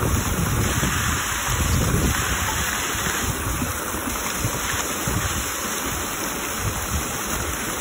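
Outdoor tiered fountain splashing steadily, its water jets and spillway falling into the pool, with wind buffeting the microphone as low rumbles in the first few seconds.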